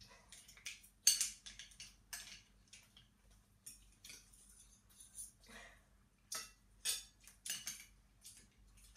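Irregular short clinks and clicks of plates and utensils as a person eats at a table, the loudest about a second in.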